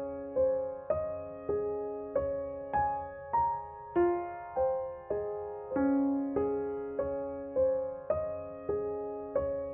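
Background music: a slow, gentle piano melody, single notes struck about every 0.6 seconds and left to ring and fade.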